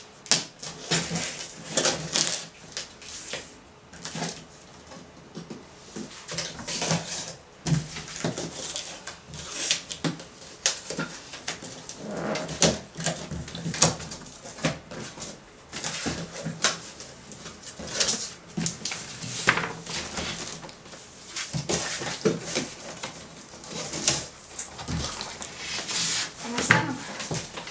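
Packing tape being slit with a knife and a large cardboard monitor box being opened and handled: irregular scraping, tearing and rustling of cardboard, with knocks as the flaps and outer box are pulled up.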